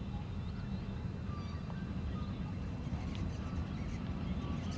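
Distant low rumble of NSWGR 59 class 2-8-2 steam locomotive 5910 working a loaded cement train, with small birds chirping now and then over it.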